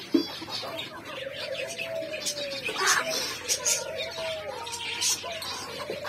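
Aviary finches chirping, with many short high calls, over a low, drawn-out cooing call that comes a few times, each lasting a second or more.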